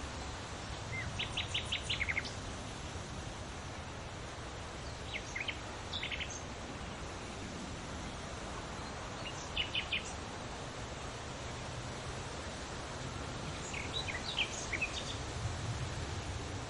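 Small birds singing in four short bursts of quick, high chirping notes over a steady hiss of leaves rustling in the wind.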